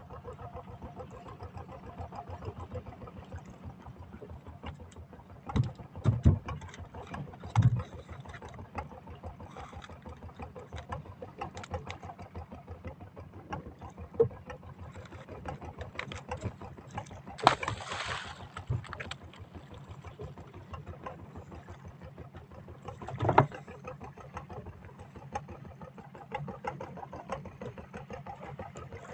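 Small fishing boat's engine running steadily, with several loud thumps and knocks on the boat and a short rushing noise about two-thirds through.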